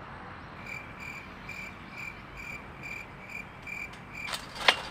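Cricket chirping at an even pace, two or three short high chirps a second, stopping shortly before the end. Then a few sharp clicks, the last one the loudest.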